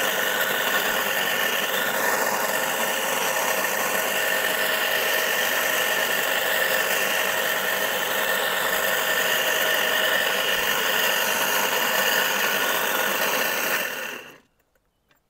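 Single-phase electric motor of a wheeled garden cultivator running steadily under load with a whine, its cutters digging a furrow in the soil. Near the end the sound dies away over about half a second into silence.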